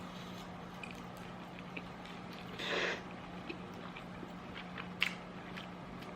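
Quiet chewing of a mouthful of chicken casserole, with small mouth clicks over a steady low hum. A short breathy noise comes near the middle, and a sharp click about five seconds in.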